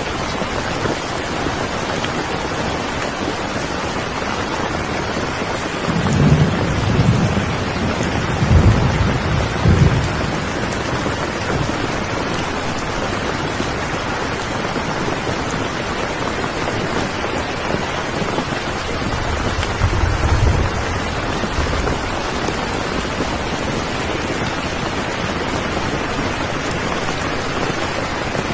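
Steady heavy rainfall, with low thunder rumbling briefly about six seconds in, again around nine seconds, and once more around twenty seconds.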